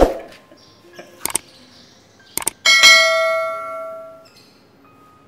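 Subscribe-button animation sound effect: two pairs of sharp clicks, then a bright bell ding that rings on and fades out over about a second and a half. A short thump comes at the very start.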